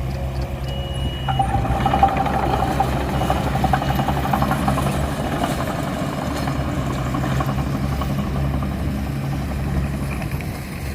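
Heavy diesel earthmoving machine engine running steadily. Between about one and five seconds in there is a brief high squeal and a stretch of metallic rattling.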